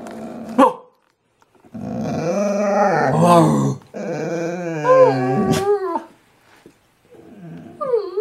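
Black Labrador 'talking': two long, drawn-out growling moans that rise and fall in pitch, the second wavering, followed by a few short whines near the end.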